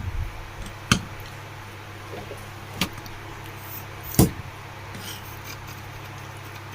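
Metal parts of a table fan motor being handled during reassembly: four sharp knocks and clicks, the loudest about four seconds in, over a steady low hum.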